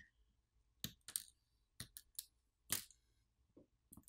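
A series of sharp, small clicks, about eight at uneven spacing, as a plastic pry tool pops flex-cable connectors off a smartphone's main board.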